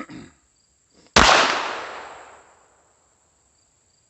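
A single shot from a Glock 44 .22 LR pistol about a second in, sharp and loud, with a long fading tail. Insects chirp faintly and steadily.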